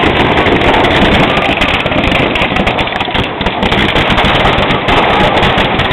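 Fireworks and firecrackers going off in a fast, dense crackle of many small bangs without a break.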